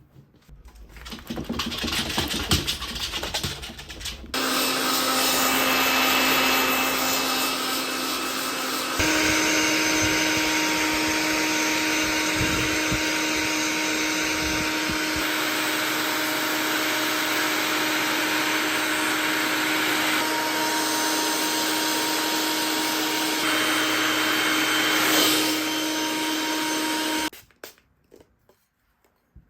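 Household appliance with an electric motor switched on after a few seconds of handling noise, running at a steady whine. It steps up to a higher speed partway through, then switches off abruptly near the end.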